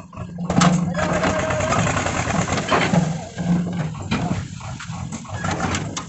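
Swaraj 724 XM tractor's diesel engine running steadily while its hydraulic tipping trailer is raised, with a load of soil sliding out of the back.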